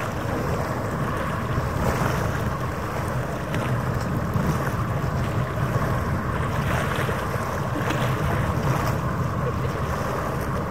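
Wind buffeting the microphone over harbour water, with a steady low drone from a passing ferry's engine.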